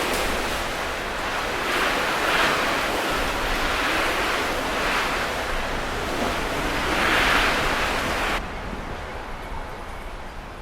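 Strong Levante wind rushing and gusting, buffeting the microphone, swelling every couple of seconds. The sound drops suddenly to a quieter rush about eight seconds in.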